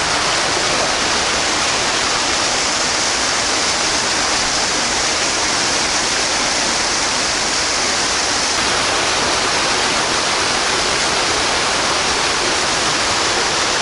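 Steady, unbroken rush of running water, like water pouring into a pool.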